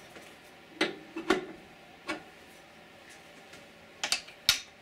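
Five short, sharp clicks and light knocks, irregularly spaced and closest together near the end, from small metal parts and a tool being handled at the back of the welder after the gas hose is fitted.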